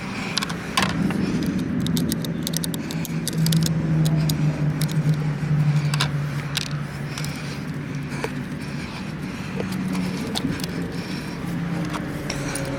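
Car engine running with a steady low hum, with many sharp metallic clicks and clinks scattered over it.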